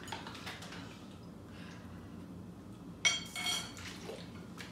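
Chopsticks and a ceramic plate clinking, one short sharp clatter about three seconds in, amid quiet table handling noise.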